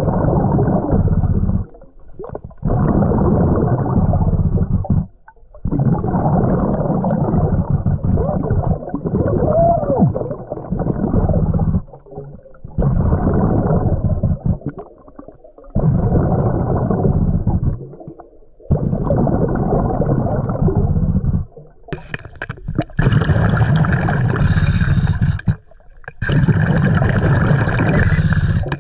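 Underwater bubbling rumble from a diver's breathing regulator, heard in repeated bursts of a couple of seconds with short quiet breaks between them. Toward the end, a higher buzzing tone joins the bursts.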